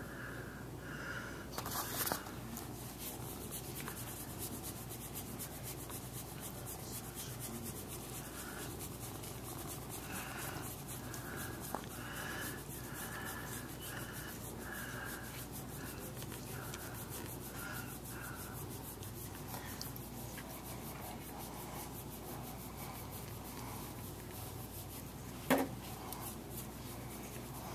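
A cat's rough tongue licking another cat's fur at close range: a steady run of rapid rasping strokes. There are two sharp taps, one about two seconds in and a louder one near the end.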